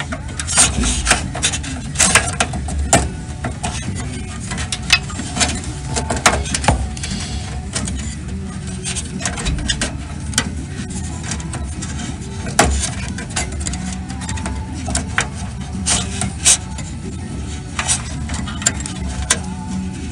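Irregular clicks, taps and light rattles of computer fan power cords and their plastic male and female connectors being handled and untwisted, over a steady low hum.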